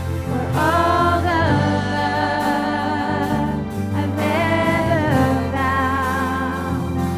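Worship band playing a gospel-style song with a singer holding long, wavering sung notes over a steady bass, one phrase starting about half a second in and another about four seconds in.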